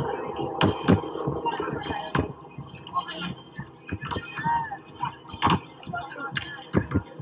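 Beach volleyball rally: several sharp slaps as a volleyball is struck by players' forearms and hands, with short calls from players and voices around the court between the hits.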